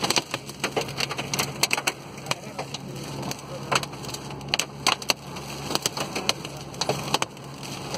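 Heavy rain pelting a moving car's windshield and roof, heard from inside the cabin, with many irregular sharp taps of hard drops over a steady low hum of engine and road.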